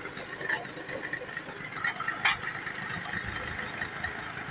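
Tractor engine running steadily, with one short sharp clack about halfway through.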